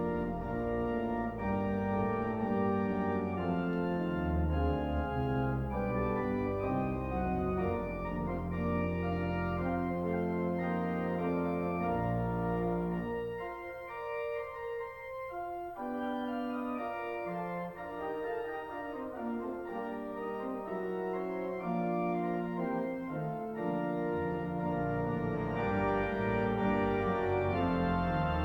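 Church organ playing the closing postlude: sustained chords over a deep bass line, which drops out briefly about halfway through before the full sound returns.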